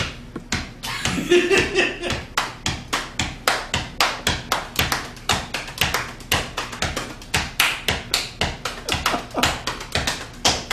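Hambone body percussion: hands slapping the thighs and clapping in a fast, steady rhythm of about five slaps a second.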